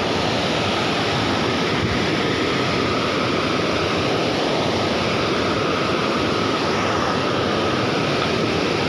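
Steady rush of river water spilling over a stepped concrete weir.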